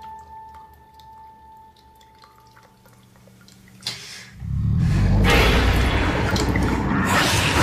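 Faint dripping over a quiet, steady drone. About four seconds in comes a sharp hit, then a loud, noisy rushing swell: a horror-style sound-effect sting.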